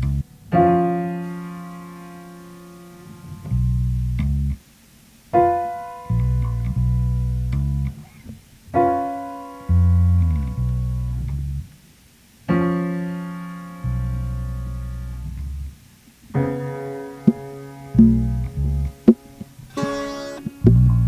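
Slow ambient instrumental music: keyboard chords struck every few seconds and left to fade, alternating with a low sustained bass, with quicker short plucked notes near the end.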